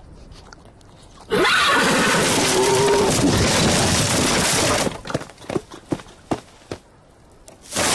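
Cartoon zebra giving a loud, wavering whinny mixed with a rushing, crashing blast, starting about a second in and lasting about four seconds, as the blast sweeps a tree away. A scatter of light hoof clicks follows as the zebra steps up, and another loud burst starts at the very end.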